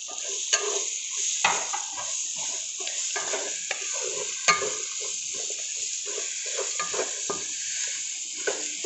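Sliced onions and green chillies sizzling in hot coconut oil while a spatula stirs and scrapes them around the pan. Sharp clacks of the spatula on the pan come now and then, the loudest about four and a half seconds in.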